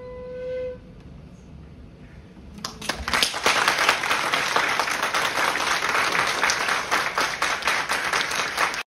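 A shinobue (Japanese bamboo transverse flute) holds its final note, which ends under a second in. About two and a half seconds in, an audience starts applauding, marking the end of the piece; the applause cuts off suddenly near the end.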